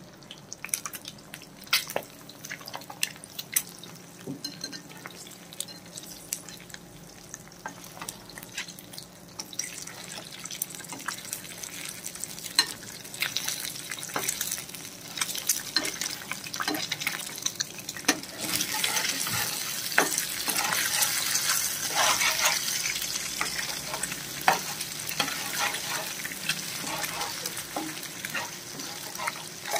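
Eggs frying in hot oil in a metal frying pan, sizzling, while a slotted metal spatula scrapes and taps against the pan to break them up. The sizzle grows louder about a third of the way in and is strongest a little past the middle.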